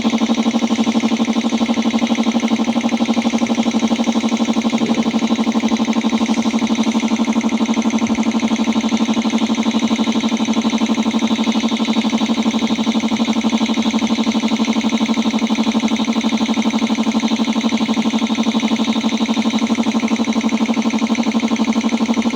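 Air compressor running steadily: a continuous pitched hum with a fast, even pulsing that does not change.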